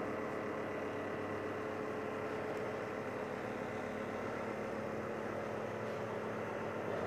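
A motor running steadily: a constant machine hum with a few steady tones, unchanging throughout.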